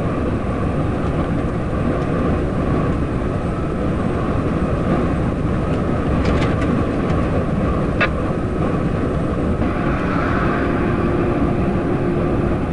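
Steady engine, tyre and wind noise inside the cab of an IVECO truck cruising at motorway speed, with one brief click about two thirds of the way through.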